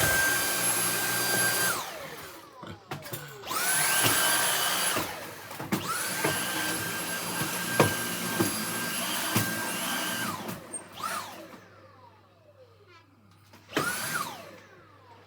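Cordless Dyson stick vacuum running with a steady high whine. It is switched off and on several times: each stop is followed by a falling whine as the motor spins down, and there is one short burst near the end. A few knocks come in between as the vacuum is moved about.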